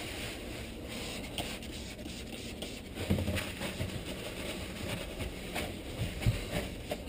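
Paper towel being rubbed over a wall and countertop: a soft, steady rubbing with a few light knocks.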